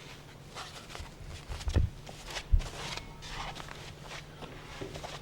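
Work noises in a small room: scattered rustles and light clicks, with two dull thumps about two and two and a half seconds in.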